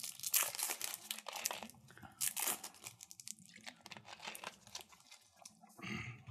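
Plastic candy wrapper of a Pulparindo tamarind bar crinkling and tearing as it is peeled open, in quick crackly runs that thin out after about three seconds.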